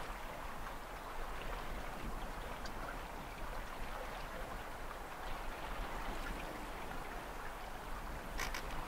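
Water rushing and splashing steadily along the hull of a small junk-rigged sailing boat under way, with a low rumble underneath and a brief sharper sound near the end.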